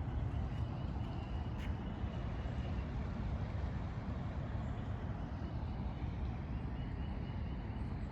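Steady low outdoor rumble, with faint bird chirps about a second in and again near the end.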